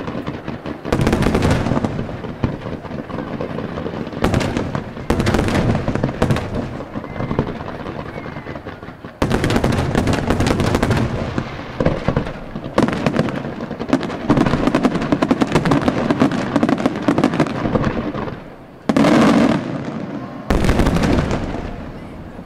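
Aerial fireworks display: shells bursting and rapid reports firing in dense volleys, with several sudden loud barrages starting one after another.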